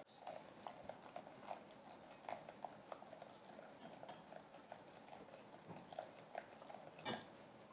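Faint trickle and splash of water poured from a glass measuring jug into a glass mixing bowl of detergent base, with many small irregular clicks of a silicone spatula stirring against the glass. One sharper knock comes about seven seconds in.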